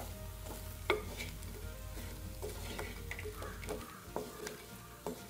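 Wooden spoon stirring chicken pieces through spiced oil in a clay pot, with irregular scrapes and knocks against the pot and the sharpest knock about a second in. Under it is a light sizzle of the chicken and spices frying.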